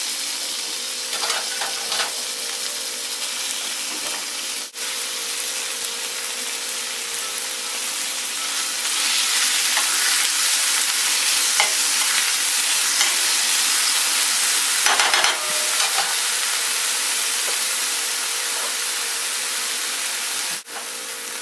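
Chopped red onion sizzling in hot olive oil in a frying pan, a steady hiss that grows louder about halfway through.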